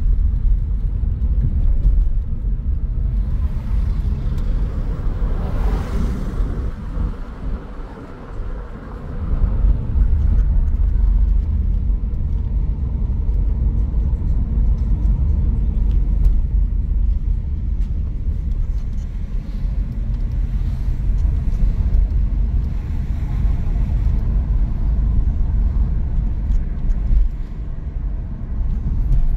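A car driving, with a steady low road-and-engine rumble. A hiss swells and fades about five seconds in, and the rumble eases off briefly about eight seconds in before picking up again.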